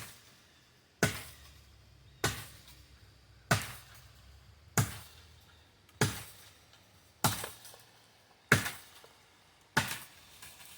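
Wakizashi short sword chopping into a standing tree trunk: nine sharp, evenly spaced strikes, about one every 1.2 seconds.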